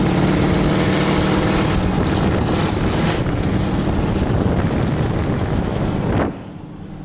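Lifted mud truck's engine running loud and steady as it drives ahead, then dropping away suddenly about six seconds in.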